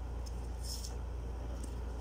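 A steady low hum, with faint short slides of stiff playing-card stock as a deck of oracle cards is handled, one a little under a second in and a weaker one later.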